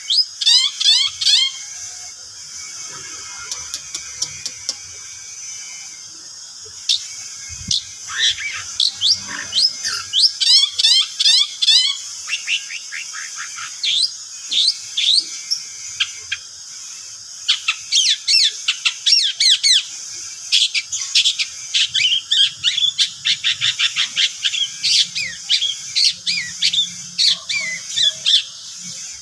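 Long-tailed shrike (cendet) singing a lure song: bursts of rapid, sharp chattering notes that sweep downward, broken by short pauses.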